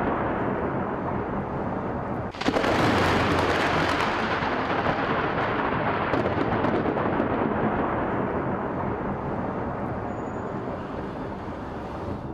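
Thunder rumbling in a thunderstorm: a continuous rumble, then a sudden louder clap about two seconds in that rolls on and slowly dies away.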